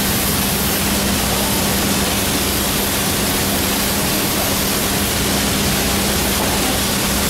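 Steady industrial background noise: an even rushing hiss with a constant low hum. The pour of molten iron makes no distinct sound above it.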